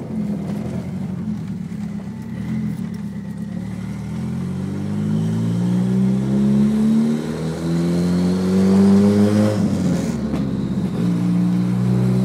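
Turbocharged car engine, heard from inside the cabin, accelerating hard under boost: the revs climb steadily for several seconds, break off briefly about ten seconds in at a gear change, and climb again near the end, with a faint rising whistle above the engine note.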